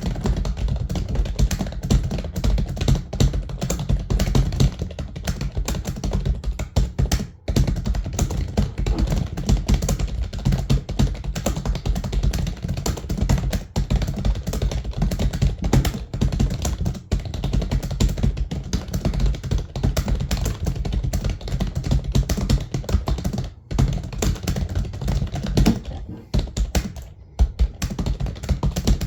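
Fast, continuous typing on a computer keyboard, a dense rattle of key clicks at typing-test speed, with brief pauses about seven and a half seconds in and again near the end.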